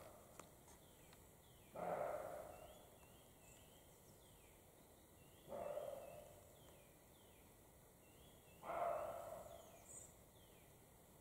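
European roe deer barking: three harsh barks a few seconds apart, each starting suddenly and fading over about a second.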